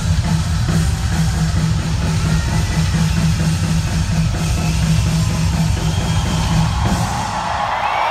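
Live rock drum solo on a full drum kit through an arena PA, driven by fast bass-drum beats. About seven seconds in the drumming stops and the crowd starts cheering.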